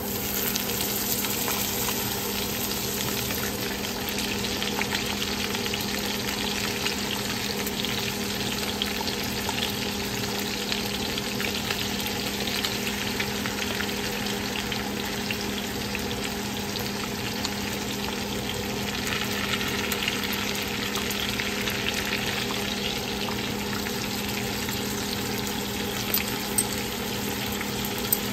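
Striped bass fillets frying in foaming butter in a cast-iron skillet: a steady crackling sizzle. A few sharp clicks stand out near the end.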